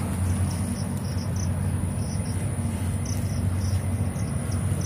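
Insects chirping in short, irregular high chirps, over a thin steady high whine and a steady low hum.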